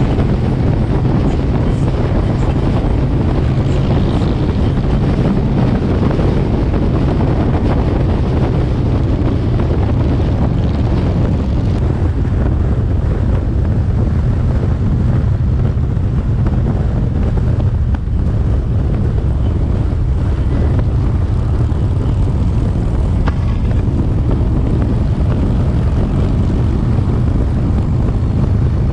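Harley-Davidson Twin Cam 103 V-twin motorcycle engine running steadily while riding, with heavy wind noise on the microphone.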